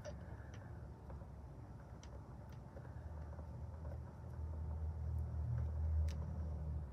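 Hands tying the ribbon at the back of a small doll's top: faint fabric handling with a few light clicks, over a low hum that grows louder in the second half and drops away near the end.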